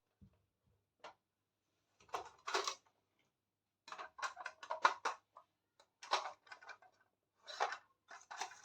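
Miniature plastic toy kitchen pieces being handled and set down: light clicks and rustles in four short clusters with quiet gaps between them.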